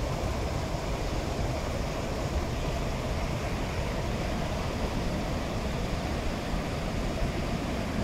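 Waterfall cascade: white water pouring over a rock ledge and churning between boulders, a steady rushing noise with a deep rumble underneath.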